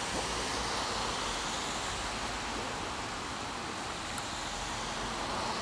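Steady rushing of a brook running high and fast with floodwater.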